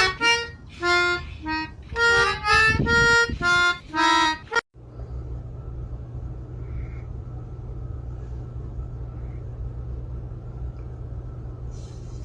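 Short held reedy notes and chords played on a small wind instrument for about four and a half seconds, then a sudden cut to a steady low hum with faint hiss.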